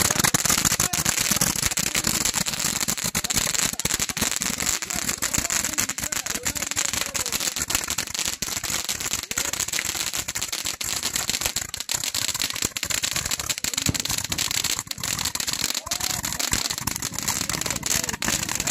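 Hand-held bundle of cannon-style firework tubes firing continuously: a steady hiss of spraying sparks packed with dense, rapid crackling and popping.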